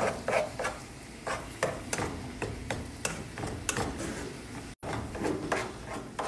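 A spatula scraping and tapping against a nonstick frying pan as an egg is scrambled through instant noodles, in irregular strokes a few times a second.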